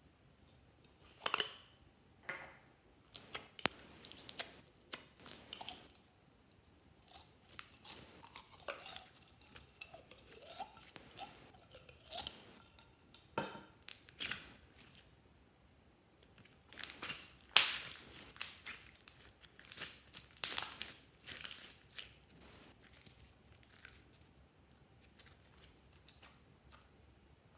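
Hands kneading, squeezing and pulling slime full of glitter flakes, giving sticky crackling and squelching sounds in irregular bursts. A few louder wet pops stand out about two-thirds of the way through.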